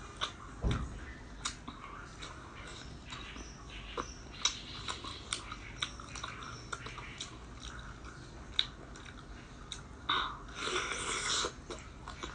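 Close-up eating sounds of biting and chewing sauce-coated squid: wet, irregular clicks and crackles, with a louder, longer stretch of mouth noise about ten seconds in.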